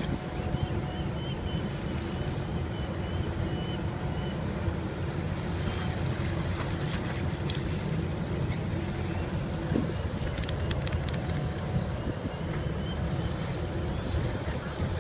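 Steady low rumble of wind on the microphone by open water, with a cluster of faint clicks about ten seconds in.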